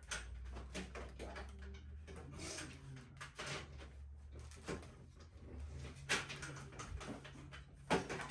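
Clicks, knocks and rustling from handling the plastic parts and packing of a new printer, with sharper knocks about six seconds in and near the end.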